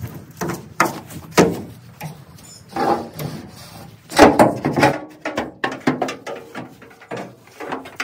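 Irregular knocks, scrapes and metal creaks as someone moves about and climbs up onto an old combine, the loudest clatter about four seconds in.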